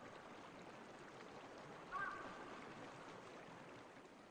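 Faint ambience of flowing water, a low even hiss, with one brief high call about two seconds in. It fades out near the end.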